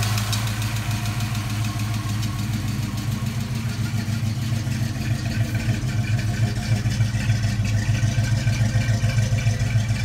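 Ford 302 cubic-inch (5.0 L) small-block V8, fitted with a Trick Flow camshaft, idling steadily; its pulsing beat grows more pronounced about halfway through.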